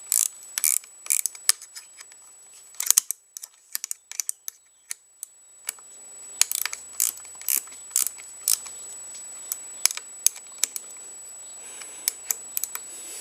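Ratcheting gear wrench clicking, in short quick runs and single clicks, as the brake lever clamp is worked on a motorcycle handlebar.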